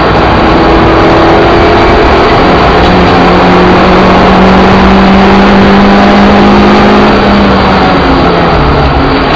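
Suzuki Ignis Sport's four-cylinder engine running hard under load on track, heard loud from inside the stripped-out cabin with road and wind noise. Its note holds steady and climbs slightly, then drops near the end.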